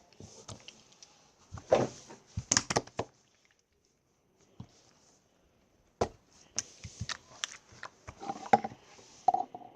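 Clear slime being squeezed and stretched by hand, giving bursts of sticky clicks and snaps in two spells, with a short quiet gap between them.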